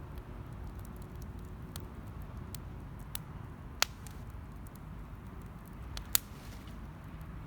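Wood campfire burning with a low steady rumble and scattered crackles, two sharp louder pops about four and six seconds in.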